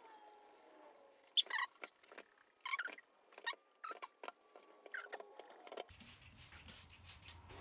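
Trigger spray bottle spritzing tile sealer onto ceramic wall tile: a series of short, quick squirts, some in pairs, each squeeze of the trigger a brief hiss.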